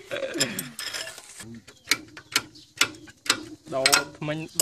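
Hand tools working the bolts of a tractor rotavator's tiller blades: sharp metallic clicks roughly every half second in the second half, like a ratchet wrench being worked back and forth.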